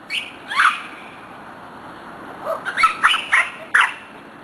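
Puppies yipping and barking in short high calls: two near the start, then a quick run of about five more a little past halfway.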